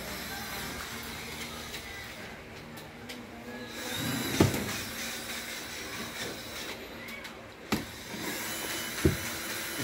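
A cabinet drawer pulled open on metal ball-bearing slides: a rolling slide noise about four seconds in that ends in a sharp knock, then a few more sharp knocks and clicks near the end.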